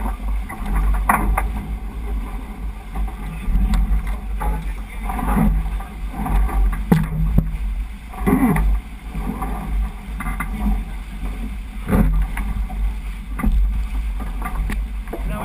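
Wind buffeting the microphone of a boom-mounted GoPro on a J80 sailboat under way, with water rushing along the hull and scattered knocks of crew and gear on deck.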